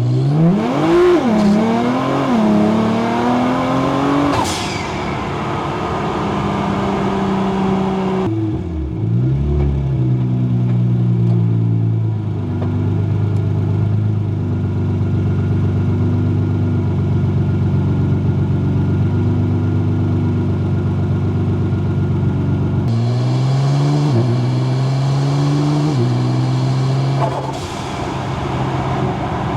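Nissan GT-R R35's twin-turbo V6, heard onboard under hard acceleration: the revs climb with quick upshifts, and a high rising whistle comes as the pull ends about four seconds in. It then runs at a steady cruise for a long stretch, and near the end pulls hard again with two quick upshifts before settling.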